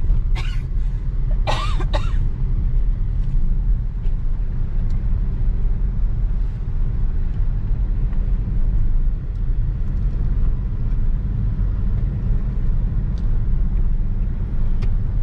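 Steady low rumble of road and engine noise inside a moving car's cabin. A couple of brief voice sounds, like a cough, come in the first two seconds.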